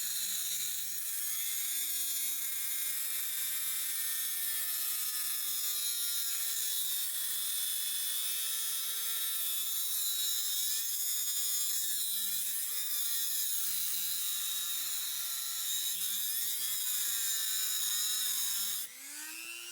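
A small power tool's motor whining steadily, its pitch dipping and recovering several times, with a harsh high hiss over it; it cuts off abruptly near the end.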